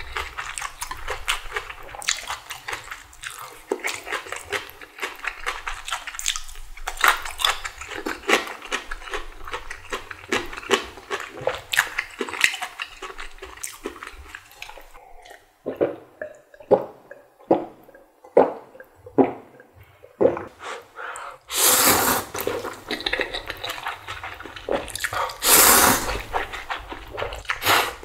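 Close-up eating sounds of a person having spicy ramen with bean sprouts: wet chewing and crackling bites, then slower separate chews, and two long loud slurps, one about three-quarters of the way in and one near the end.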